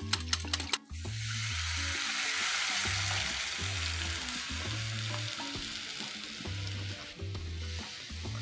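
Loud sizzle of liquid hitting hot spiced oil in a pan, starting suddenly about a second in and slowly dying down as the mixture settles.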